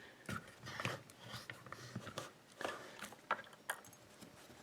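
Faint, irregular small clicks and light scrapes of a metal tension wrench being fitted and adjusted in the keyway of a pin-tumbler mortise cylinder.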